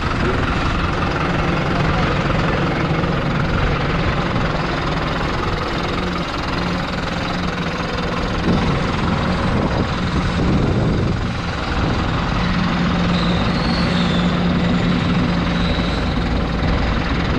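New Holland TD100D tractor's diesel engine running steadily at idle.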